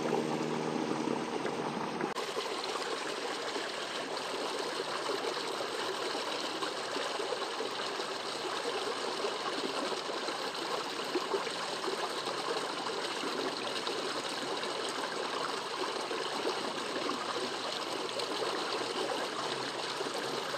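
Water in a small ditch stream flowing steadily, an even rushing trickle.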